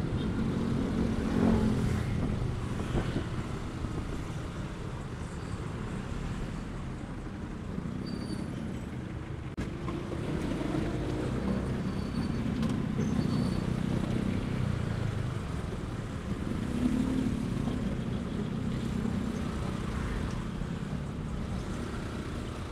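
Motorcycle engine running at low speed through slow, heavy traffic, its note rising and easing several times, with the rumble of surrounding cars.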